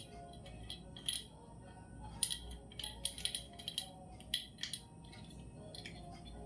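Irregular small sharp clicks and light clinks, bunched in a quick flurry through the middle, over a low steady background hum.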